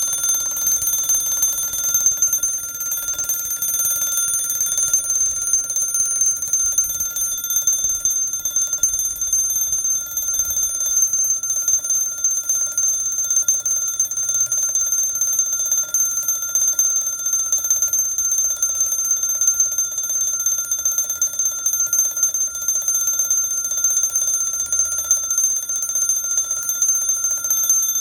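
The bell alarm of an 1890 Junghans B32 mechanical alarm clock ringing steadily, its hammer beating rapidly on the bell with no pause.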